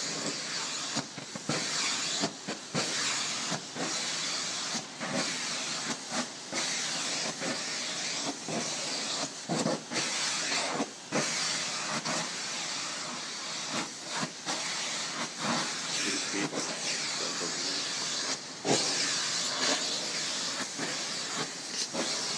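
Vacuum cleaner running, its hose and brush nozzle drawn through a cat's fur: a steady suction hiss with many brief dips.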